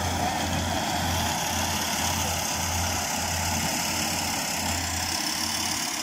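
Small rice combine harvester running steadily as it cuts paddy, its engine and threshing machinery making an even mechanical din over a low hum that throbs about one and a half times a second.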